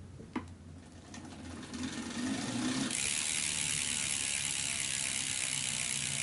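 Foam-filled Dura-Ace 7800 disc rear wheel spun up by hand-cranking on a Tacx turbo trainer. After a single click, the wheel and trainer roller whir up to speed and settle into a steady hiss and hum about three seconds in, with the freehub ratcheting.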